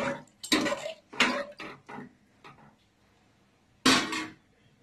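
Metal spoon scraping and knocking against the inside of an aluminium pressure cooker while stirring liquid, several quick strokes in the first two seconds, then one louder clatter about four seconds in.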